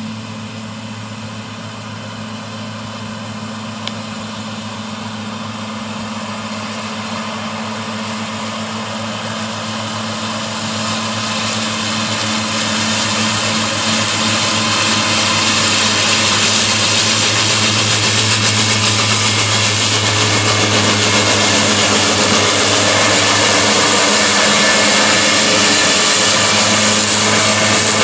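Tractor diesel engine under load driving a SIP triple mower combination, the spinning cutter units and engine making a steady machine hum. It grows steadily louder over the first half as the rig approaches, then holds loud as the mowers pass close by.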